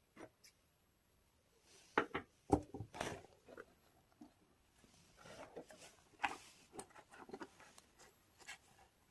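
Sparse clicks, taps and brief rustles of small objects being handled, in a cluster about two to three seconds in and another between five and seven and a half seconds.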